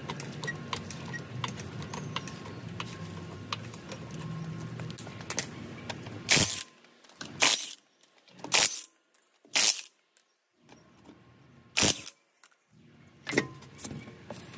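Milwaukee M18 cordless impact wrench run in six short bursts over the second half, loosening a car wheel's lug bolts. Before the bursts there is only low background noise with light clicks.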